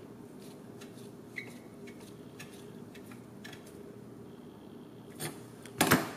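Small drone-frame parts and hardware being handled and fitted by hand: faint scattered clicks and rubbing. Near the end come a small knock and then a louder sharp clack.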